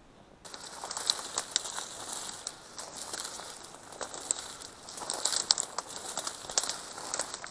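Dry reed and tall grass stems rustling and crackling as someone pushes through them on foot, with many small snaps of brittle stems. It starts about half a second in.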